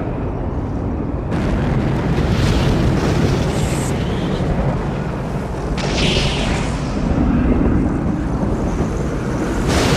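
Film sound effect of lightning strikes over a continuous low tornado roar. Three sharp thunder cracks sound: about a second in, near six seconds, and at the end.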